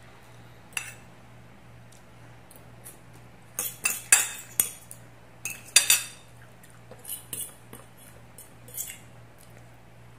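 Metal chopsticks and a fork clinking and scraping against ceramic plates of noodles, in scattered sharp clicks that come thickest around the middle.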